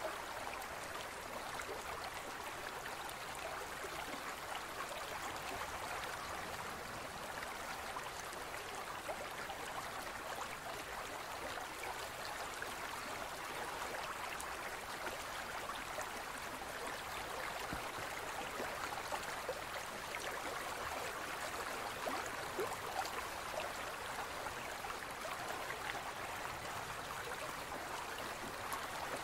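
Aquarium water trickling and bubbling steadily, with a fine crackle of small splashes.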